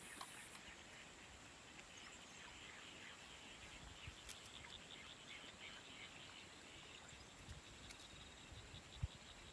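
Near silence: faint outdoor ambience with faint, rapid chirping calls in the background, and a single soft low bump near the end.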